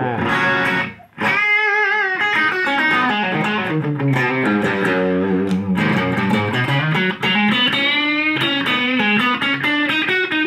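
Electric guitar played through an Idea Sound Product pedal modelled on the Fender Bassman amp, with its boost-drive control engaged. It plays a phrase of notes and pitch bends in a lightly driven tone, with a brief break about a second in.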